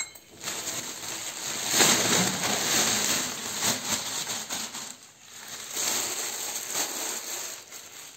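Thin plastic carry bags crinkling and rustling as they are handled and emptied of vegetables, in two louder spells with a short lull between.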